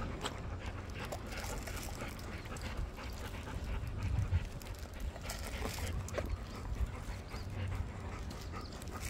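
Golden retrievers panting close up, with rubbing and handling noise as a dog's fur brushes against the phone, and small scattered clicks.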